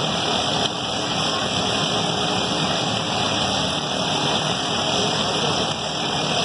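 Several riding lawn mower engines running together, a steady mechanical din with no single sound standing out.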